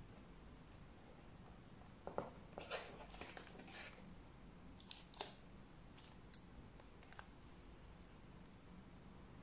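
Crisp rustling and crinkling of a paper shopping bag and the plastic wrap of a boxed wallet as the box is pulled out of the bag, bunched about two to four seconds in. A few lighter crinkles and taps follow as the wrapped box is handled.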